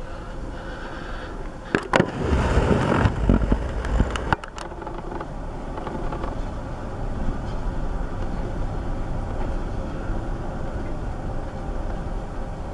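Freight cars rolling slowly past during yard switching: a steady low rumble of wheels on rail. About two seconds in, a louder rushing burst with sharp clicks at its start and end lasts a couple of seconds.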